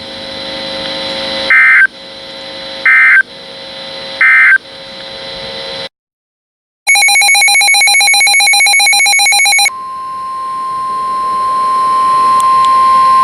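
Emergency Alert System / NOAA Weather Radio alert signals. Three short data-burst squawks, the end-of-message code, sound over a humming carrier, followed by a second of silence. Then comes a harsh pulsing buzz for about three seconds, and then the steady single-pitch Weather Radio warning alarm tone.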